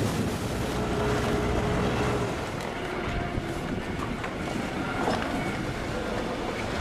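A boat's engine running over wind and water noise at sea, its low rumble stronger for the first two seconds and then easing.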